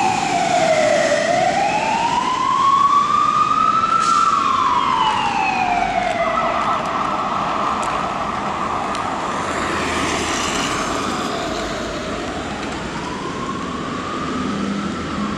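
Fire engine siren on a London Fire Brigade Mercedes-Benz Atego pump, sounding a slow wail that rises and falls every few seconds. Around the middle it holds one pitch for a few seconds before the wail resumes.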